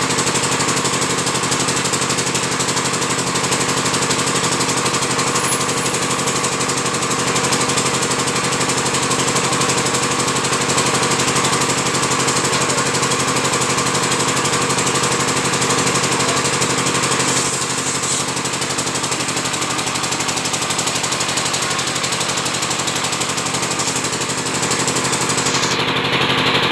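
A small engine running steadily at idle with an even knocking beat, dropping a little in loudness about two-thirds of the way through.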